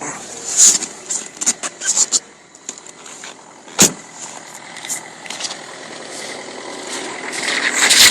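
Diesel car engine being started in severe frost below −30 °C. There are irregular sharp clicks early, a loud knock about four seconds in, and engine noise that builds near the end.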